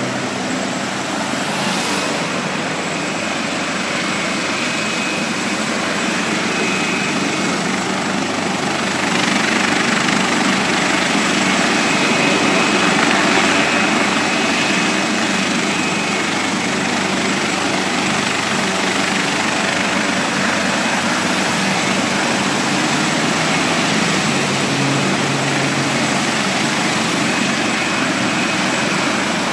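Medevac helicopter running steadily, with a faint high whine, mixed with the noise of highway traffic; the sound swells for several seconds about ten seconds in as a car approaches.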